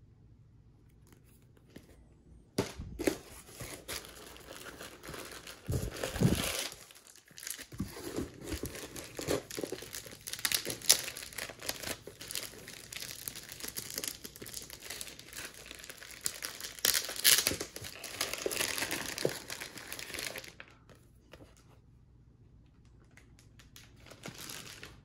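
Plastic packaging crinkling and rustling as hands pull a bagged book out of a box padded with plastic air pillows. Irregular bursts of crinkling start about two and a half seconds in and go on until about twenty seconds, then stop, with a little handling noise near the end.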